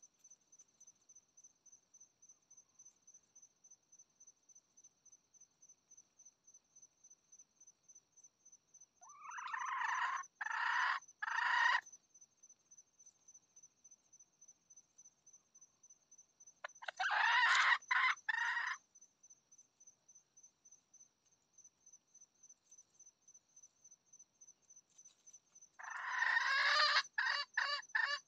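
Red junglefowl rooster crowing three times, each crow a few seconds long and broken into short segments. The third crow runs into a rapid stuttering series near the end. Under it is the steady, rapid high chirping of an insect.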